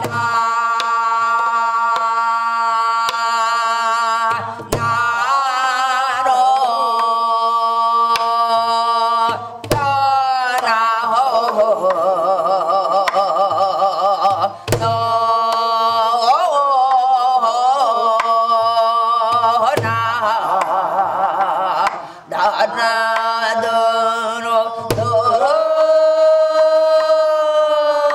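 Korean gueum, wordless sung vocables composed for dance, in a woman's voice holding long notes that waver with wide vibrato. A traditional Korean drum keeps a slow rhythm under it, with deep strokes about every five seconds.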